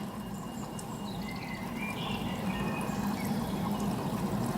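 Steady low rumbling noise of the storm outside, slowly growing louder, with a few faint bird chirps over it.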